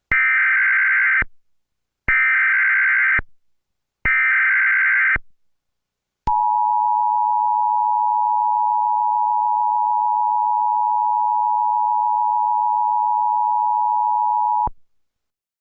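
Emergency Alert System tones that open an alert broadcast: three one-second bursts of SAME header data tones, about a second apart, then the steady two-tone attention signal (853 and 960 Hz together) held for about eight seconds before it cuts off sharply.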